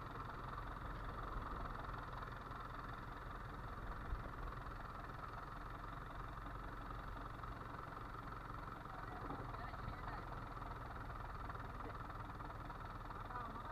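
Fishing boat's engine running steadily with a low, even drone, with one short knock about four seconds in.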